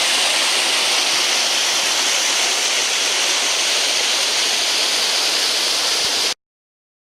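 Steady rush of water from a woodland brook and its small waterfalls, cutting off abruptly about six seconds in.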